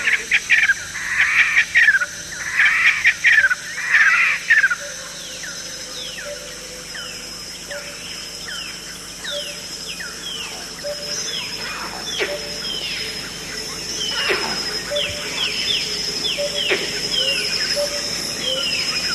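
Rainforest animal calls at night turning to dawn: many short descending chirps repeat throughout, with loud bursts of clustered calls in the first five seconds. A steady high whine joins about eleven seconds in.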